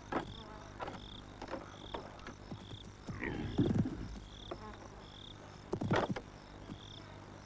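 Savanna ambience of an insect chirping steadily, one short high chirp about every half second, with a few short noises from two male topi antelopes sparring: a longer one about three and a half seconds in and a sharp one near six seconds.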